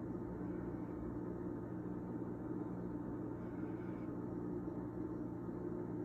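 A steady, low mechanical hum made of a few constant tones over a light hiss.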